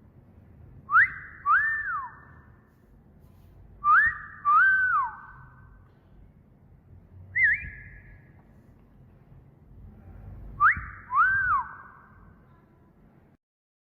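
A whistled wolf whistle, a sharp rising note followed by a longer note that rises and falls, heard three times, with one short rising chirp between the second and third.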